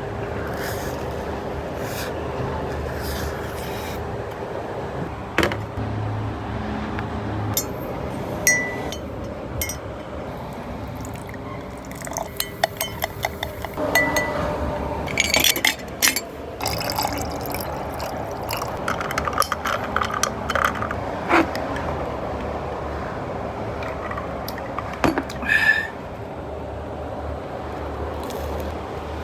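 Scattered clinks of glass and tableware and liquid being poured, with a steady background hum.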